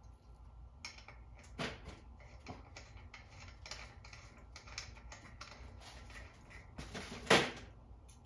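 Metal finial being twisted by hand onto the threaded rod under a glass ceiling-fan light bowl: a string of small metal clicks and scrapes, with a louder one about a second and a half in and the loudest near the end.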